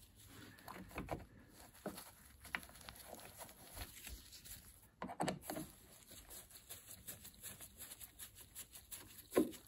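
Faint, scattered clicks and knocks of a hand screwdriver and gloved hands working screws into a van's rear bumper, with louder knocks about five seconds in and again near the end.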